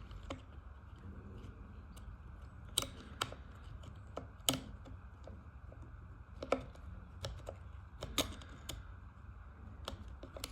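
Irregular small clicks and taps from the plastic trigger parts and spring of a Husqvarna 372XP chainsaw's rear handle being handled and fitted by hand. The loudest come about three, four and a half and eight seconds in, over a low steady hum.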